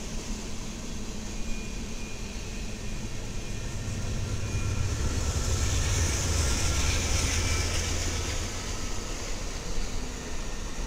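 Train passing, its rumble and rail noise swelling from about four seconds in, loudest in the middle, then easing off near the end.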